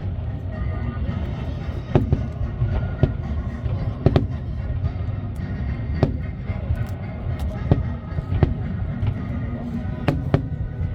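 Aerial fireworks bursting in quick succession, sharp bangs over a continuous low rumble, with the show's music playing alongside.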